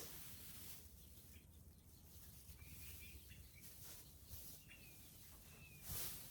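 Near-quiet outdoor background with faint, short bird chirps now and then, and a brief rustle near the end.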